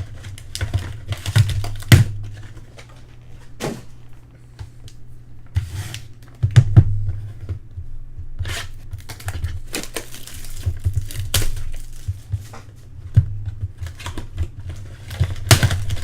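Sealed baseball card boxes and packs being torn open and handled: crinkling, tearing wrapper and irregular clicks and knocks of cardboard, over a steady low hum.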